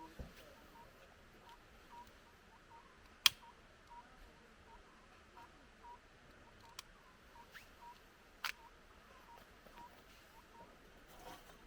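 Firewood burning in a steel fire pit, giving off a few sharp crackling pops over a faint hiss. The loudest pop comes about three seconds in. A faint high peep repeats about two or three times a second.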